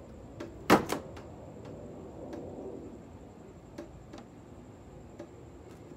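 Hand fitting of a two-piece wing stabilizer on a Subaru WRX's rear wing: a sharp double knock just under a second in, then scattered light clicks of the parts and hardware being handled.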